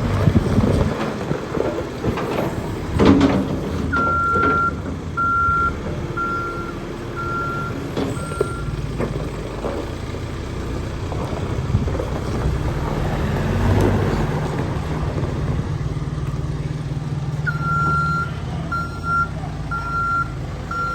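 Caterpillar 420D IT backhoe loader's diesel engine running steadily, its reversing alarm beeping in an even series about four seconds in and again near the end. A few clanks come in the first three seconds.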